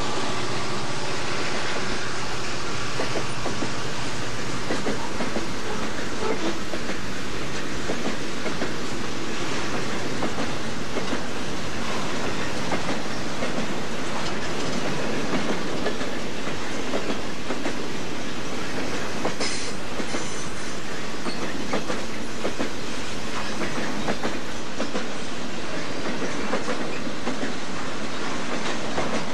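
Southern Pacific freight train rolling past close by: the steady rolling and rattling noise of boxcars, hoppers and trailer-on-flatcar cars, with wheels clicking over rail joints. The last locomotive's engine tone fades out in the first couple of seconds, and a brief high wheel squeal comes about two-thirds of the way in.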